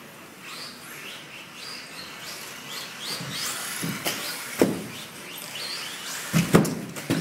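Electric motors of 1/10-scale 4WD RC buggies whining, rising and falling in pitch as the throttle is worked. Sharp knocks come about four and a half seconds in and a few more near the end as the buggies land off the jumps and hit the track.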